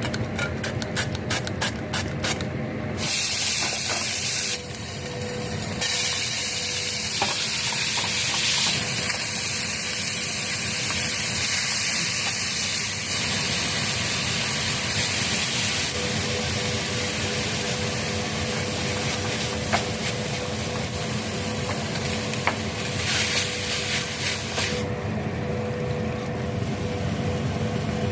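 Food sizzling and frying in a hot pan while being stirred, the hiss changing in texture several times as things are added or moved. A quick run of sharp knocks comes in the first three seconds, with a few single clicks later.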